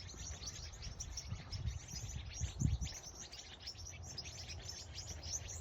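A dense chorus of many small birds chirping rapidly together in a tree, over a steady low rumble, with one brief low thump about two and a half seconds in.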